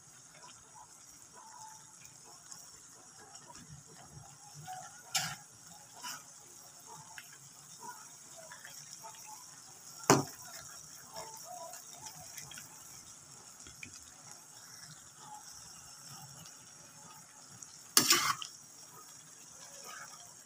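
Noodles and vegetables sizzling steadily in a wok on a gas burner, with a metal spatula stirring and knocking against the pan. There are sharp knocks about five and six seconds in, the loudest about ten seconds in, and a quick run of them near the end.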